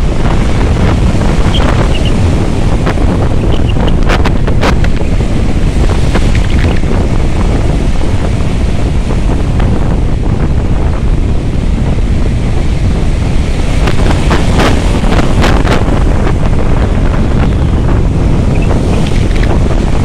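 Rough sea surf breaking and washing on the shore, under heavy wind buffeting the microphone.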